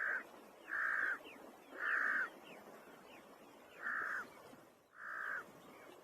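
A bird calling repeatedly: five harsh calls of about half a second each, roughly a second apart, over a steady background hiss.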